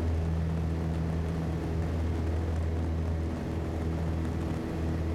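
Small plane's engine droning steadily in flight, a low even hum.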